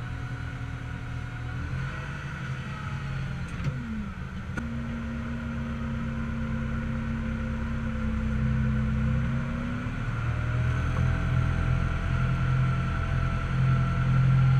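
Tractor engine running, heard from inside the cab, with a steady whining tone over the engine note that dips in pitch about four seconds in. There are two light clicks around that point, and the engine grows louder in the second half.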